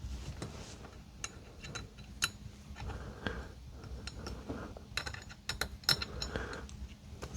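Ratchet wrench clicking in short runs, with metal clinks, as bolts are tightened down.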